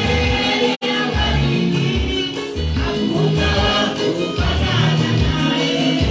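Live gospel praise-and-worship music: voices singing over instrumental backing with a steady beat. The sound cuts out for an instant under a second in.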